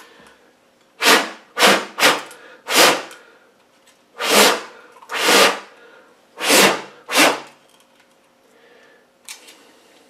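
Water being cleared by hand off the outside of a wet plastic electrical enclosure: eight short, loud whooshing bursts over about six seconds, with quieter handling noises around them.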